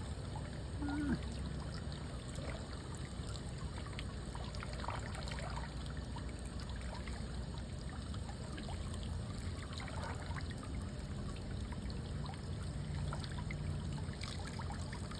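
Fresh water pouring steadily from an outlet at the back of a boat into the sea, a continuous trickling splash.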